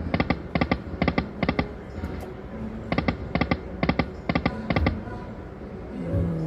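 Five-reel video slot machine spinning twice: each spin ends in five quick reel-stop clunks, one reel after another, about two a second, over the steady din of a casino floor.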